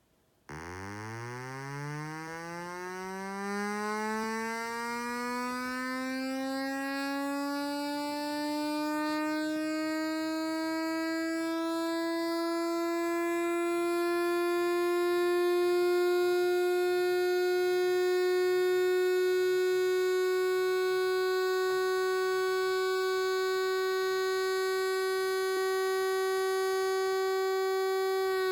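Simulated electronic siren from an LTspice model of a PNP-transistor siren circuit, played back as a WAV file: a buzzy tone that starts about half a second in and sweeps quickly up from a low pitch. It then climbs more and more slowly and levels off into a steady high wail, starting to fall only at the very end.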